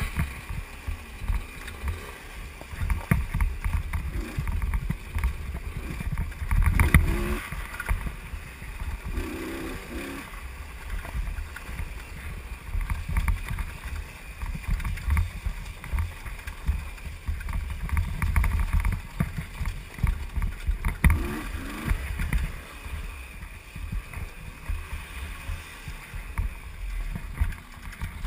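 Heavy wind buffeting and rumble on a helmet-mounted camera's microphone while riding a dirt bike over a rough trail, with knocks from bumps. The bike's engine is faint under the wind, its pitch rising and falling briefly a few times as it revs.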